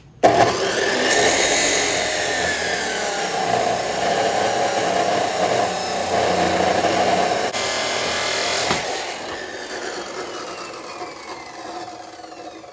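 Abrasive fiber-disc chop saw starting and cutting through steel angle, a loud steady grinding for about eight and a half seconds. Then the motor is switched off and the blade spins down, its pitch falling as it fades.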